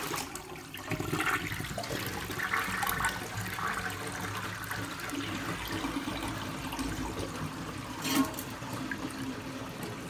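Vintage American Standard Cadet toilet flushing on a reduced 1.6-gallon tank fill: water rushes into the bowl, swirls and drains away with a steady rush for about ten seconds. The siphon pulls and the bowl clears fully despite the low water volume.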